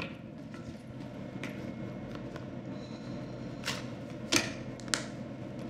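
Quiet café room tone, a steady low hum, broken by a few short sharp clicks and taps; the loudest comes about four and a half seconds in.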